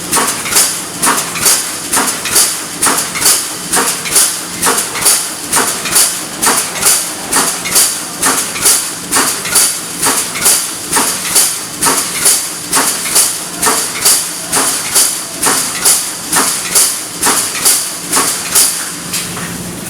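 Automatic wire mesh welding machine cycling, a steady rhythm of sharp metallic strikes about twice a second as it welds fence mesh.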